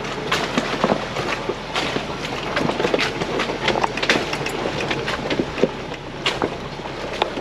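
4x4 crawling over a rough, rocky off-road trail: a dense run of irregular clunks, knocks and rattles from the suspension, body and tyres on rock over a low, steady engine hum.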